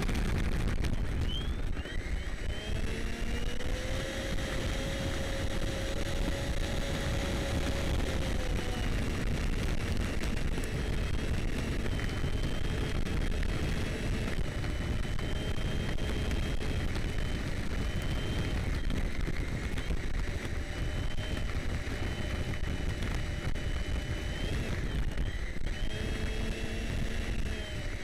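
The Freewing Stinger 90's electric ducted fan whining at low, varying taxi power, its pitch rising about two seconds in, shifting through the middle and sliding down at the very end. Under it is a steady rumble of the landing-gear wheels rolling over loose gravel, heard close up from on board.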